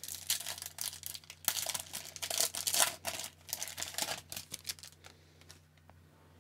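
Foil wrapper of an Upper Deck hockey card pack being torn open and crinkled as the cards slide out. The crackling rustle fades to a few soft rustles after about four and a half seconds.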